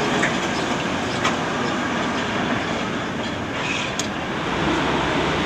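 Tram running along street rails: steady rolling rumble with a few sharp clicks from the wheels.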